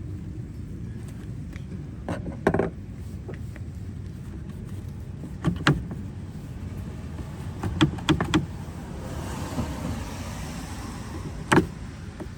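Several short, sharp clicks and knocks of parts being handled while a turn signal light is taken apart, over a steady low rumble.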